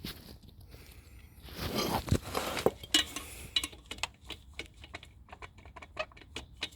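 Removed metal clutch parts being handled by hand: a rustling shuffle a couple of seconds in, then a run of irregular light metallic clicks and clinks.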